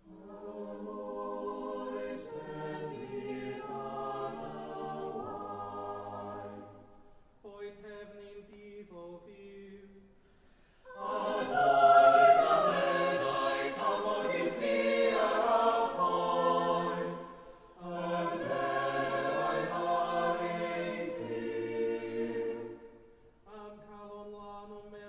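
Church choir of mixed voices singing in phrases separated by short pauses, with quieter passages between fuller ones, the fullest about halfway through.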